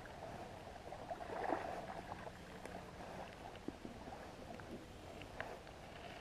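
Faint steady rush of wind and lapping water, swelling slightly about a second and a half in, with a few scattered small clicks.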